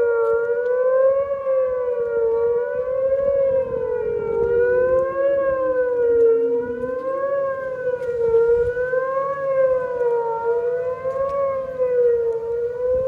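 Outdoor warning sirens sounding together during a test. The loudest one warbles up and down about every two seconds, while another siren winds down in pitch over a few seconds around the middle and then starts to wind back up.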